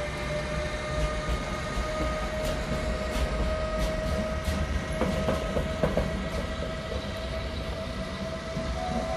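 Siemens Vectron electric locomotive hauling a container freight train past, its traction drive giving a steady electric tone that slowly rises in pitch over a low rumble. Several sharp clicks from the wheels on the track come in the middle.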